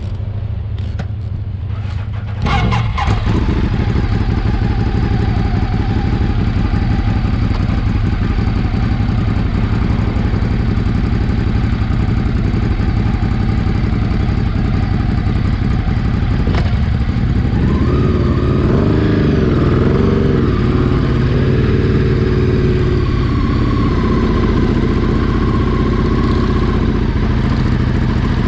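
An engine running steadily, getting louder about two and a half seconds in, with its pitch rising and wavering from about seventeen seconds in as it changes speed.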